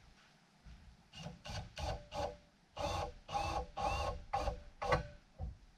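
Power drill/driver with a Torx bit driving a screw in about nine short trigger pulses, the motor whining up and stopping each time.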